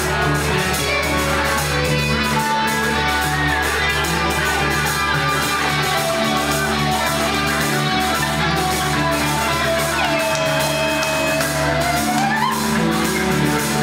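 Live band playing bellydance music led by guitar. A long held melody note swoops upward about twelve seconds in.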